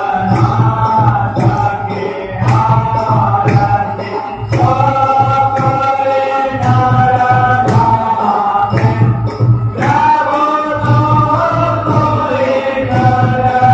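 Hindu aarti music: a group singing a devotional chant in long held notes over a strong low accompaniment, with a steady beat of sharp percussive strikes.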